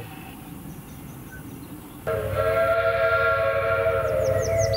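A narrow-gauge steam locomotive's chime whistle starts suddenly about two seconds in and blows one long, steady blast of several notes at once over a low rumble. High chirps come in near the end.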